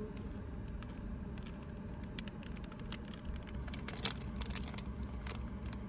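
Plastic food packaging crinkling and being torn open by hand, a run of small crackles and clicks thickest in the second half, over a steady low hum.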